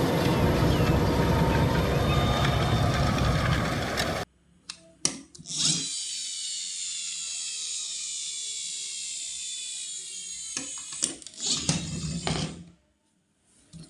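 A loud rushing noise cuts off suddenly about four seconds in. After a few clicks, a toy's small motor whirs high-pitched for several seconds, its pitch falling slowly, with more clicks before it stops.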